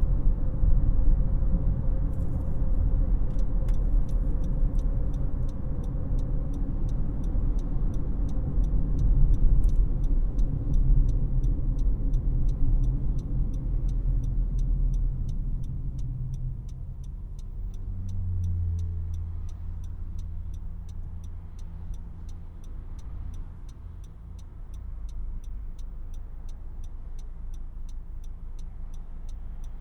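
Cabin sound of a 2018 Honda CR-V: low road and tyre rumble as the car slows, dying away about 17 seconds in, after which the 2.4-litre four-cylinder engine idles with a steady low hum. From about two seconds in, the turn-signal indicator ticks at an even, steady rate.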